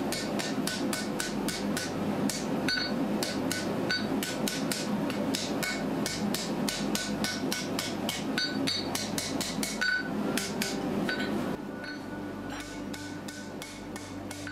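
Blacksmith's rounding hammer striking hot steel on an anvil, a steady run of blows about three a second, each ringing briefly, as the bar is rounded into a snake's body. The blows get lighter near the end, over a steady low rushing background.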